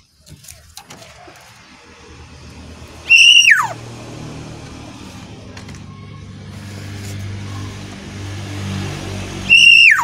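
Black-naped oriole giving two loud, harsh downslurred calls, one about three seconds in and one near the end. From about four seconds in, a steady low hum runs underneath.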